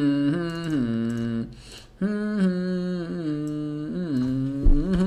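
A man humming a wordless tune in long held notes that slide from pitch to pitch, with a short break about one and a half seconds in.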